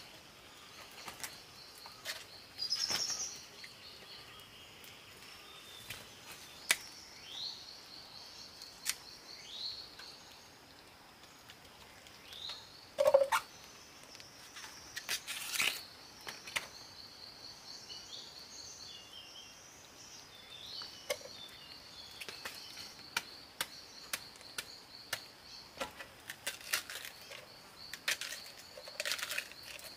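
Forest ambience: a steady, high, rapidly pulsing trill throughout, with birds calling in short rising and falling chirps. Sharp clicks and knocks of things being handled come at irregular intervals, the loudest about thirteen seconds in.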